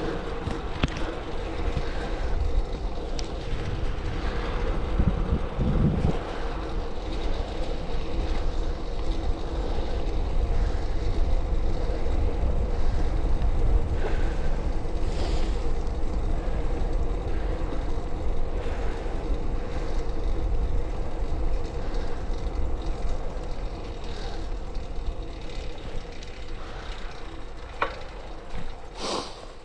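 Road bike on 25 mm Gatorskin tyres rolling over rough pavement: a steady rumble from the tyres and wind on the microphone, with scattered knocks and rattles from the bumps.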